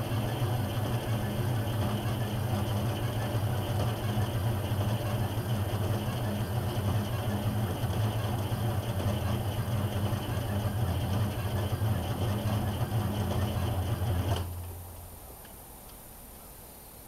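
Ford L9000's Detroit Diesel 6V92T, a two-stroke V6 diesel, running steadily with a deep, even hum just after a cold start. The sound stops about fourteen seconds in.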